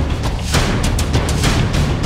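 Tense background music with repeated heavy drum hits over a deep, steady low bass.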